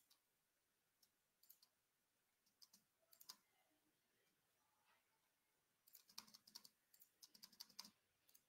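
Faint computer keyboard keystrokes: a few scattered key presses, then a quick run of typing from about six seconds in.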